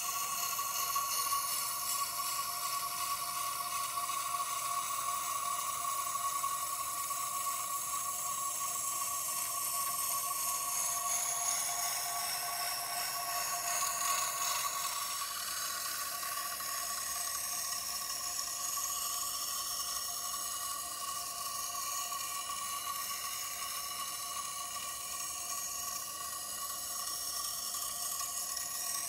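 Water-fed cup grinding wheel grinding the bevel of a yanagiba sashimi knife, a steady wet hissing grind over a constant high machine whine. The steel is being ground to widen and set the edge bevel.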